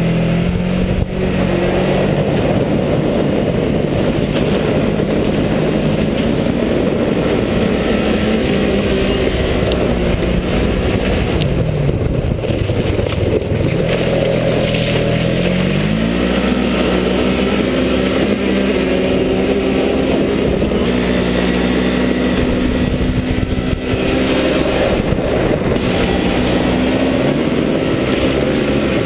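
Loud vehicle engine running hard at fairly steady revs. About halfway through its pitch drops and then climbs back up, with a constant rush of noise over it.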